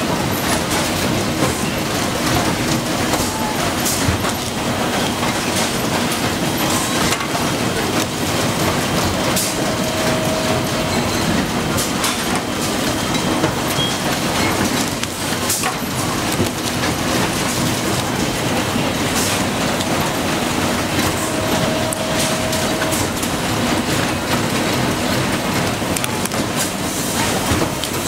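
Steady clattering din of a motor stator production line: machinery running with many small clicks and knocks. A short faint tone sounds twice, about a third of the way in and again near the end.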